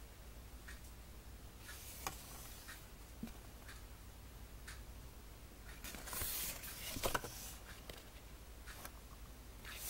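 Faint rustling and light clicks of a cardboard booklet's pages being turned and handled, with the loudest rustle about six to seven seconds in.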